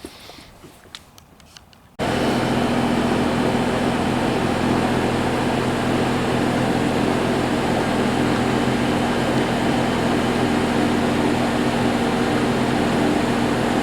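Heat pump outdoor unit running: a steady compressor hum under the even rush of the condenser fan, starting abruptly about two seconds in. Before that, a few faint clicks.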